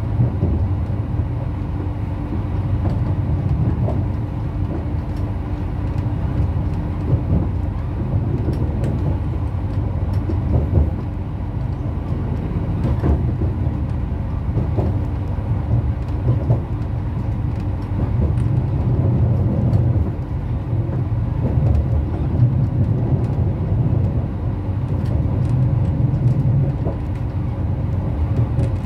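Bombardier AGC bimode railcar (B 82500 series) heard from inside the passenger cabin while running at speed: a steady low rumble with a constant hum, and scattered sharp clicks and knocks now and then.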